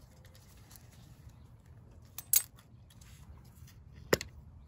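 Two sharp metallic clinks, a little under two seconds apart, from the oil filter cover's bolts and cover on a dirt bike engine being removed by hand.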